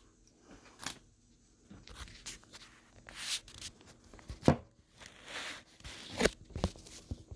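Foil Pokémon booster pack wrapper rustling and tearing as it is opened, with trading cards handled and a few sharp taps and clicks; the loudest click comes about halfway through.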